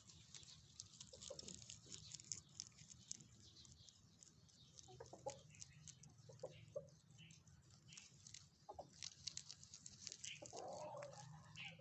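Rabbits chewing leaves: quiet, rapid, crisp crunching clicks that go on throughout, with a few short pitched calls from another animal in between.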